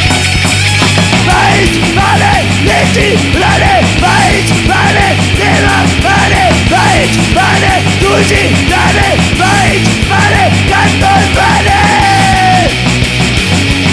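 A rock band recording, with distorted electric guitars, bass and drums playing hard and steady. Above them a melodic line repeats short rising-and-falling phrases, about two a second, and ends on one long held note near the end.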